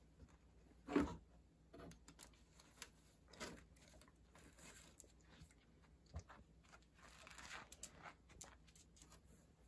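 Dog rummaging inside a cardboard box for kibble, with scattered rustles of a plastic bag and cardboard and crunches of chewed kibble; the loudest crunch comes about a second in.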